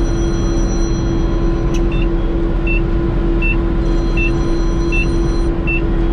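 Iseki HC1100 combine harvester running steadily with a strong, even hum. From about two seconds in, a short high electronic beep repeats roughly every three-quarters of a second.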